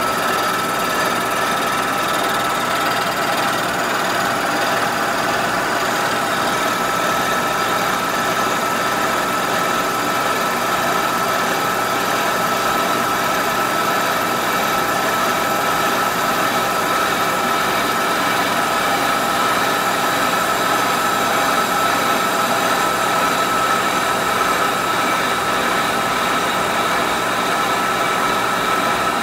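Kearney & Trecker horizontal milling machine running under a steady cut, its 3.5-inch high-speed steel shell mill face-milling a cast iron part. An even machine drone with a steady high-pitched whine through it, cutting smoothly and easily.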